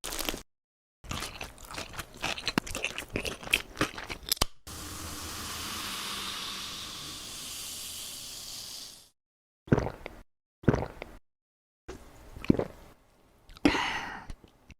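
Slime being squished and crunched: a dense run of crisp crackles and pops for a few seconds, then a steady hiss for about four and a half seconds that cuts off suddenly, then four short separate crunches.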